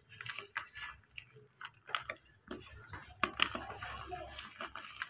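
Chunks of dried white cement crunching and crumbling as they are squeezed in the hands, with loose powder sifting down. Irregular crackles and snaps that thicken into a denser crunch about three seconds in.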